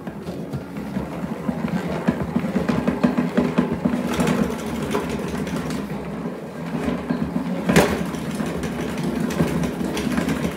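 Crank-handled salad spinner being turned by hand: a steady, rapid rattling whir from the spinning basket and gears, with one sharp knock about eight seconds in.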